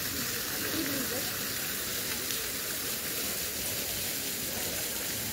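Jets of a plaza fountain spraying up from the paving and splashing back down onto it: a steady hiss of falling water that does not change.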